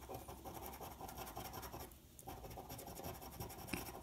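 A coin scraping the coating off a scratch-off lottery ticket in quick rubbing strokes, with a brief pause about two seconds in.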